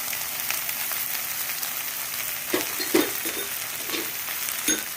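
Okra frying in oil in a kadhai, a steady sizzle, with a few knocks of a spoon against the pan in the second half as it is stirred.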